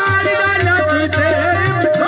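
Live Punjabi folk music: a harmonium holds steady chords under a melody line that bends in pitch, over a steady low hand-drum beat and quick, evenly repeating percussion strikes.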